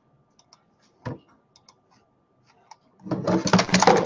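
A few faint, scattered clicks of a computer mouse and keys, one a little louder about a second in. About three seconds in, a loud crackling, rustling noise starts and keeps on.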